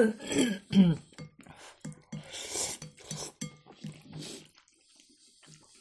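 Ramen noodles being slurped and chewed, with light clicks of chopsticks against glass bowls and a short laugh at the start.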